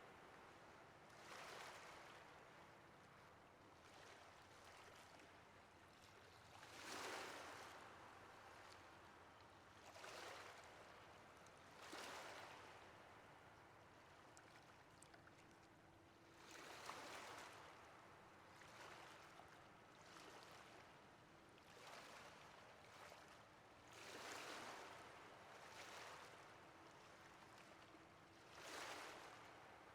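Ocean waves breaking and washing ashore, softly: a steady wash with surges that swell and fade every few seconds, the strongest about seven seconds in and near the end.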